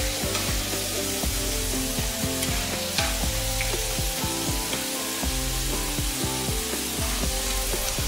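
Potato sticks deep-frying in hot oil in a frying pan during their second fry, a steady crackling sizzle, stirred with wooden chopsticks that click against the pan a few times. Background music with held notes plays underneath.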